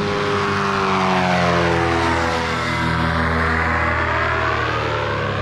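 Powered paraglider (paramotor) flying past low overhead, its propeller engine droning steadily with the pitch bending as it goes by.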